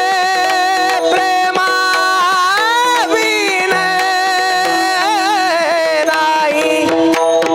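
A singer holds a long, high devotional abhang note, gliding up and wavering with ornaments, over a steady held drone. Pakhawaj drum strokes sound through it.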